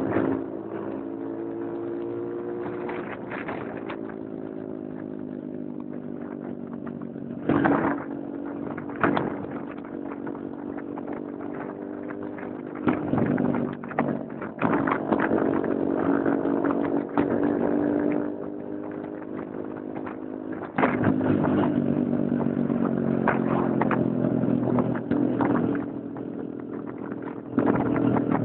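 Small motorcycle engine running under way, its pitch rising and falling with throttle and speed, with loud bursts of wind rushing over the microphone now and then.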